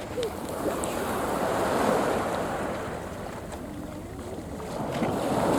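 Sea waves washing onto the beach, swelling about two seconds in, easing off, then building again near the end, with wind buffeting the microphone.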